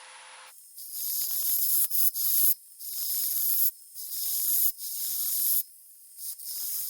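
Bowl gouge cutting the spinning wet walnut on a lathe running at 900 RPM, a hissing shearing sound in repeated passes with short breaks. The first pass starts about half a second in, over the lathe's faint steady hum.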